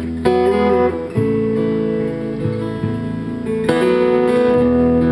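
Acoustic guitar strumming the instrumental intro of a slow song, with bass guitar notes underneath; the chord and bass note change about a second in and again near four seconds.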